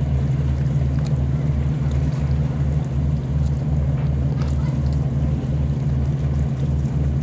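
Tugboat diesel engine running steadily under load, towing barges against the current: a loud low drone with an even beat about three times a second.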